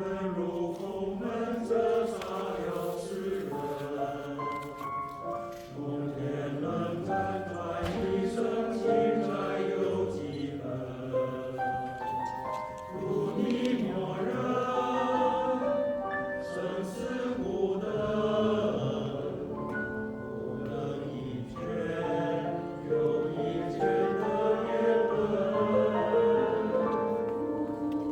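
A song performed with a sustained, sung melody over musical accompaniment.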